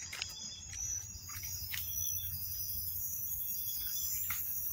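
Crickets and other night insects trilling steadily in high, continuous tones, with a few brief rustles and knocks from moving through brush.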